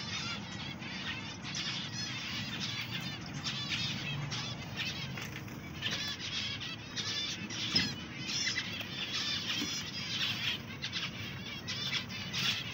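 Many small aviary birds chirping at once: a dense, continuous chatter of quick, high chirps with no pause.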